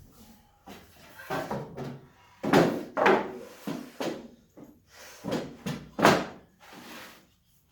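A series of wooden knocks and thumps from boards and a jig being handled and set down on a table saw, the two loudest about two and a half and six seconds in.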